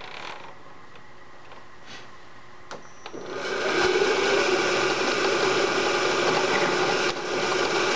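Milling machine spindle starting about three seconds in and running steadily while a boring bar cuts an aluminium bore, a mechanical whir with cutting noise. Before it come a few faint clicks.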